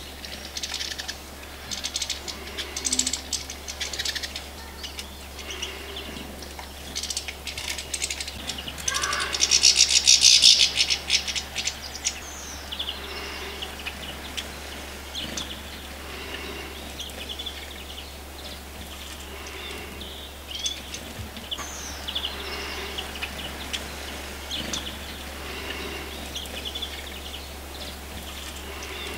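European goldfinches chirping and twittering in short bursts, with a louder run of rapid twittering about ten seconds in, over a steady low hum.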